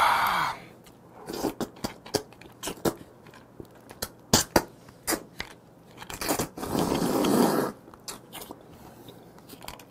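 Close-up eating sounds of a man eating raw blue crab: wet lip smacks, clicks and chewing as the flesh is sucked out of the shell, with a long slurp lasting over a second past the middle.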